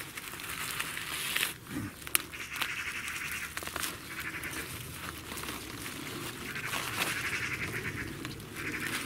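Hand trowel digging into the soil around an onion bulb to loosen it for lifting: repeated scraping, crunching strokes through earth, with a couple of sharp clicks about two seconds in.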